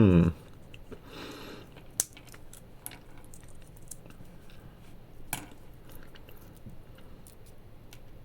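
Pistachios being cracked open and chewed, with sharp cracks about two seconds in and again about five seconds in, and faint crunching and crackling between.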